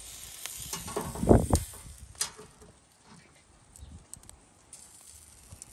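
Metal knocks and a clatter as a hinged wire grill basket of chicken is set onto a charcoal barbecue, the loudest about a second and a half in, over a soft hiss in the first two seconds, followed by a few light clicks.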